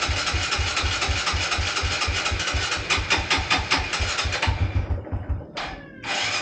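A motorcycle's electric starter cranks an engine that has not been run for a long time, with a rapid, even chug of compression strokes and the engine not catching. The cranking stops about five seconds in, gives a short blip, and starts again near the end.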